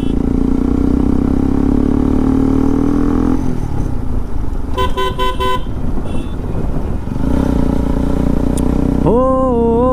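Motorcycle riding along a road: a steady engine drone, giving way to rougher road and wind noise. A vehicle horn gives a quick run of short toots about five seconds in. Music with a sliding, voice-like tone starts near the end.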